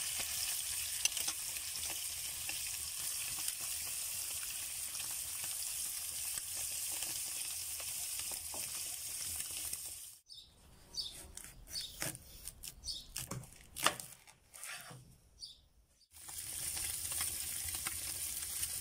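Chicken thighs sizzling skin-side down in hot fat in a frying pan over a wood fire, a steady hiss. About ten seconds in, the sizzle drops away for several seconds, leaving scattered pops and clicks, then resumes.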